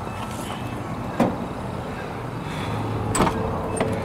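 Warning chime of a 1989 Toyota Land Cruiser with its door open, a short high beep about twice a second that drops out for much of the time and returns near the end. A few sharp clicks of door or seat handling come through over a low steady hum.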